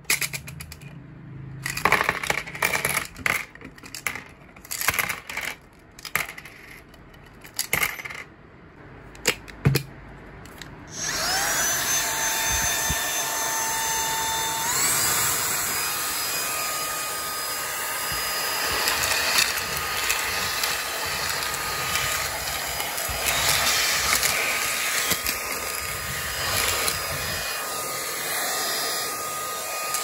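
Coins, screws, nuts and washers clatter and clink as they are tipped out of a clear plastic vacuum dust bin. About 11 s in, the Autobot VX cordless handheld vacuum's motor starts with a rising whine, steps up in pitch a few seconds later, then runs steadily while metal pieces rattle as it sucks them up.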